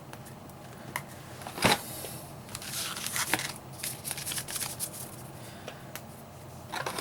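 Trading cards being handled and flipped through from freshly opened booster packs: quick rustles and light snaps, with one louder snap a bit under two seconds in and a busier patch of rustling after it.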